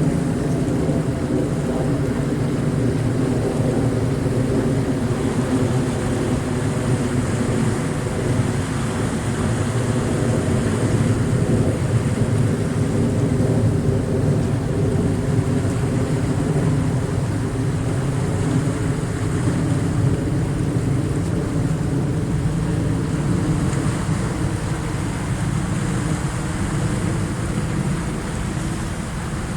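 Incoming high-tide waves washing in a steady rush of water. A low engine-like drone of several steady tones runs under it and fades toward the end.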